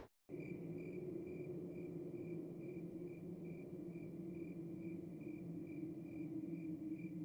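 Crickets chirping steadily, about two to three chirps a second, over a low steady hum.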